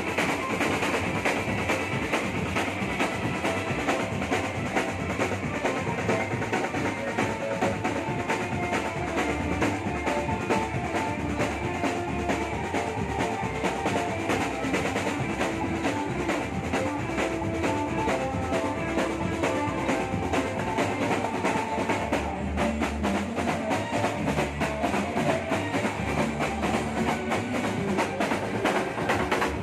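Marching drum band playing a sholawat tune: bass drums and snare drums beating a steady, driving rhythm under a melody.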